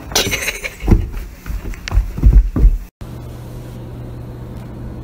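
A run of dull thumps and knocks over the first three seconds. After a brief break comes a steady low hum with nothing else standing out.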